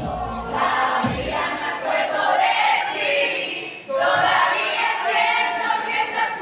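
A crowd of people singing together, many voices at once; the bass of the backing music drops out about a second in, leaving mostly the voices.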